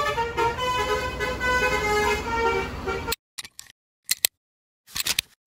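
Multi-tone bus horn on a coach sounding a run of held notes that change pitch, cutting off abruptly about three seconds in. Then a few short, sharp effect sounds from a logo intro.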